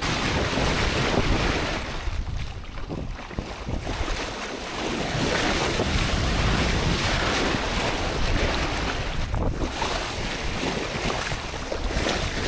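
Sea water rushing and splashing along the hull of a Nicholson 35 sailboat under way, swelling and easing with the waves, with wind buffeting the microphone.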